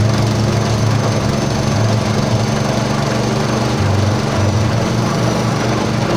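Pellet-making machine built from a modified meat grinder running steadily, its motor giving a continuous drone that swells and eases slightly.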